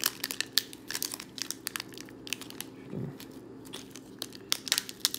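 Foil trading-card pack wrapper crinkling and crackling as hands tear it open, a quick run of many sharp crinkles.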